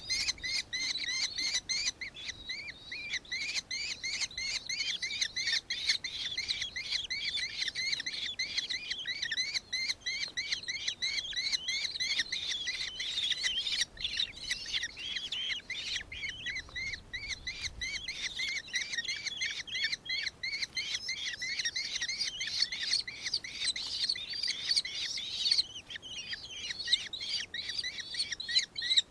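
Birds giving a continuous, dense chorus of shrill, rapidly repeated chirps, several a second, with overlapping voices.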